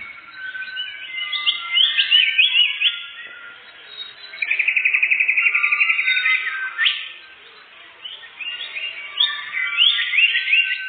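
Songbird singing in quick sweeping whistled phrases, with a fast even trill lasting about two seconds near the middle.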